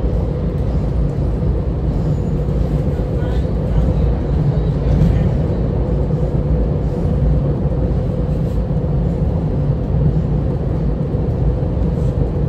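SEPTA Regional Rail electric train running: a steady low rumble with a steady hum that does not change.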